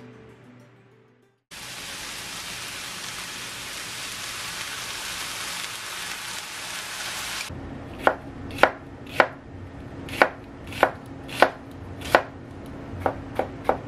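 A steady hiss for about six seconds, then a knife chopping on a cutting board: about ten sharp strokes, roughly one every half second, with soft background music underneath.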